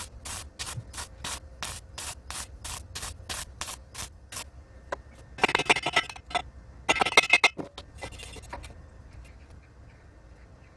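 Rhythmic rubbing or brushing strokes on the steel pipe frame, about three a second, stopping partway through. They are followed by two loud hissing bursts of about a second each and a fainter third.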